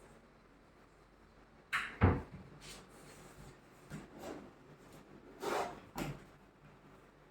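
A wooden cabinet being opened and shut: a slide and a loud knock about two seconds in, a few softer knocks and slides, then another slide ending in a knock about six seconds in.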